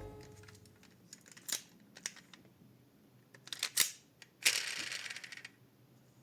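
A few light clicks and taps of small hard objects being handled, then about a second of scraping rustle a little past the middle.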